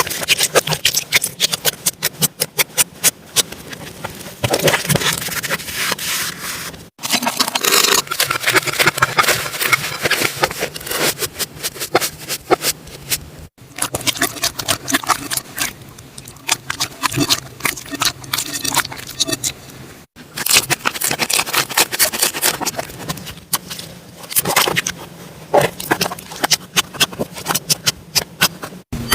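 Slime being squeezed, poked and stretched by hand, giving dense runs of sharp clicks and crackles as air pockets pop. It comes in several separate takes that break off abruptly.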